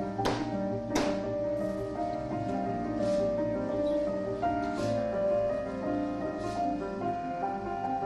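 Background music with piano-like held notes. A few short, sharp strokes sound over it, the strongest about a second in.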